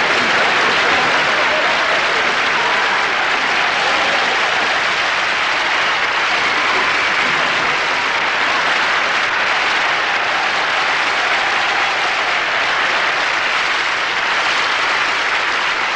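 Large audience applauding steadily, tapering off slightly near the end.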